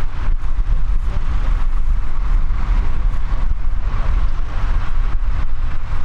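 Tractor engine running steadily under load as it pulls a mounted plough through the soil.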